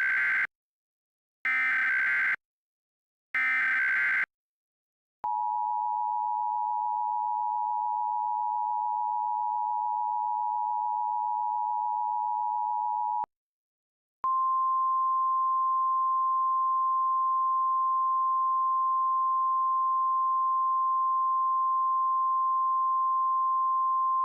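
Emergency Alert System tones. First, the last of three short buzzing SAME header data bursts, about a second apart. Then the two-tone EAS attention signal, held for about eight seconds. After a one-second pause comes a single steady, slightly higher alert tone, the NOAA Weather Radio alarm, for about ten seconds. Together they are the header and attention tones that open an emergency alert message.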